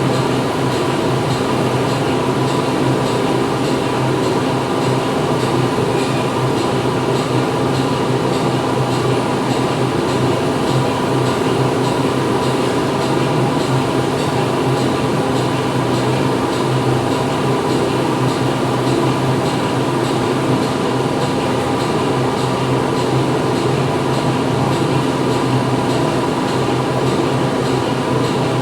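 Steady din of factory machinery running inside a plant hall: a continuous hum of several held tones over dense mechanical noise, with a faint regular ticking on top.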